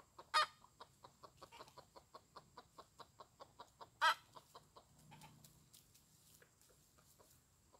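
Rooster clucking in a rapid, even series of short clucks, about five a second, with two louder, sharper notes near the start and about four seconds in; after the second one the clucks come slower and fainter.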